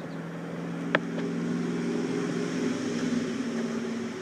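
An engine running steadily, growing louder and rising slightly in pitch, with a single sharp click about a second in.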